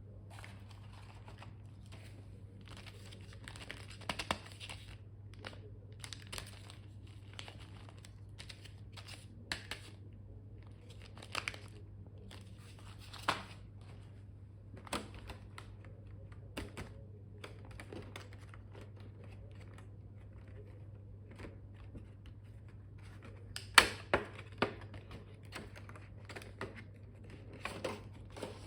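Packaging being handled and opened by hand: irregular crinkling and tearing with short clicks and rustles, and a few louder snaps near the end, over a steady low hum.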